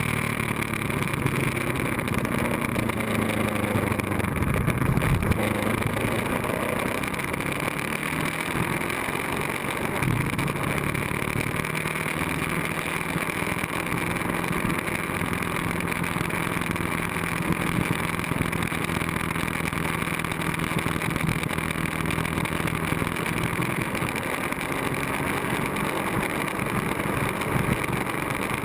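Ducati 1098S V-twin engine running at a steady road cruise, with wind rushing over the microphone. Its pitch shifts a few times in the first several seconds, then holds steady for most of the rest.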